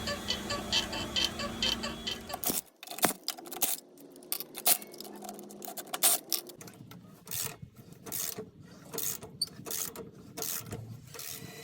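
Repeated short squeaks and clicks from a Jeep's suspension, quick and regular at first, then coming irregularly. The squeaking is put down to worn bushings.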